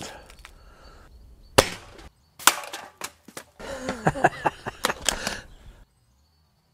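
Handling noise of a Diana 240 break-barrel spring air rifle being cocked and loaded: a sharp click about one and a half seconds in, then a run of lighter metallic clicks and rattles that stops shortly before the end.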